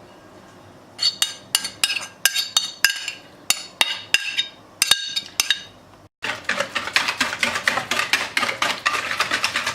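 A utensil clinking and tapping against a mixing bowl as lemon zest goes into the batter, in separate ringing clicks. After a short break about six seconds in, fast steady mixing strokes against the bowl, about six a second.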